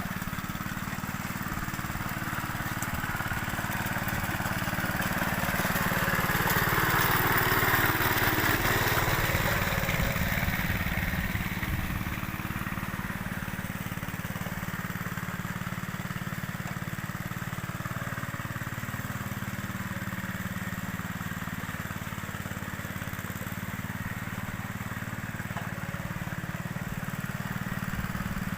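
Tractor engine running steadily throughout, swelling louder for several seconds from about five to eleven seconds in.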